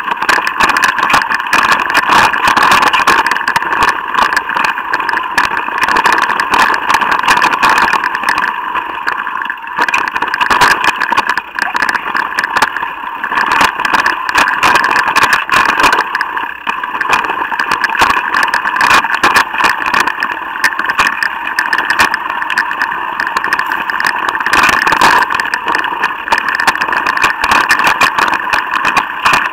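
Mountain bike descending a rough dirt trail. A steady buzz from its drivetrain runs throughout, with constant rattling and knocking from the bike over the bumpy ground.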